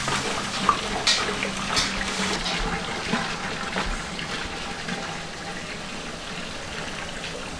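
Water gushing from a large plastic water can into a big metal pot already partly full of water, splashing. It is louder over the first few seconds, then settles to a quieter steady pour.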